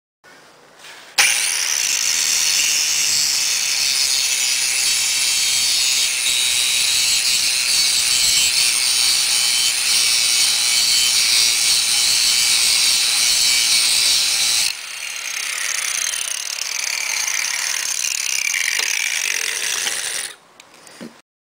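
Angle grinder grinding metal: a steady, high-pitched grinding starts about a second in and runs for about 13 seconds. It then goes on quieter for about five seconds before stopping near the end.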